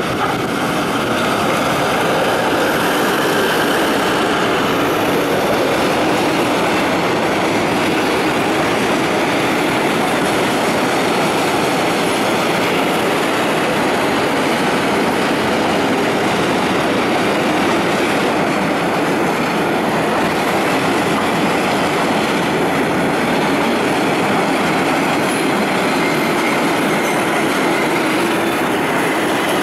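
Diesel-hauled freight train of open wagons and flatcars rolling past close by on the rails. The steady, loud running noise of the wheels rises in the first second and then holds level.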